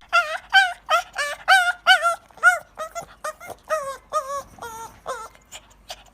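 A dog giving a rapid run of short, high-pitched yelps, about three a second, growing fainter toward the end.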